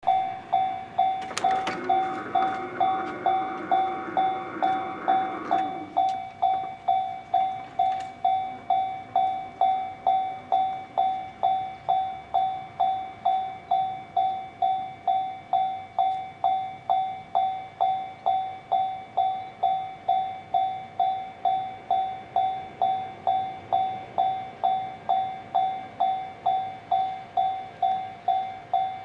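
Japanese railway level-crossing warning bell ringing steadily at about two dings a second, warning of an approaching train. A louder, rougher rushing sound rises over it from about a second and a half in and stops at about six seconds.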